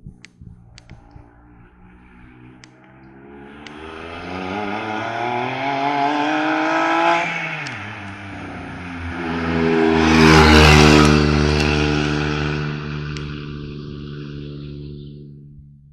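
Hill-climb race car's engine under hard acceleration, rising in pitch as the car approaches. About 7.5 s in, the revs drop sharply at a gear change or lift. The engine then holds a steady pitch while passing, loudest around 10 to 11 s, and fades away uphill near the end.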